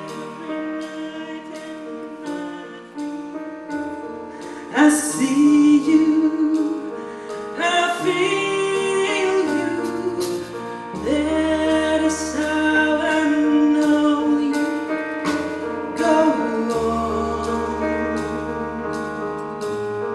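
A woman singing with a big band: held notes with vibrato over the band and a steady beat. Her voice comes in about five seconds in, and a bass line joins about halfway.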